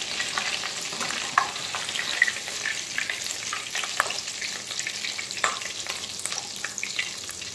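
Hot oil sizzling and crackling steadily as vermicelli-coated bread cutlets deep-fry in a pot, with many small pops and a few sharper clicks.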